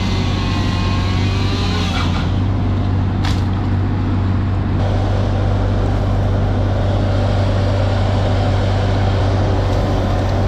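A heavy engine running steadily at a constant speed, with a low, even drone.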